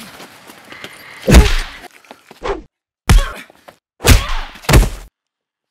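Punches and blows landing in a staged fistfight: five heavy, thudding hit sounds, the last three coming quickly one after another.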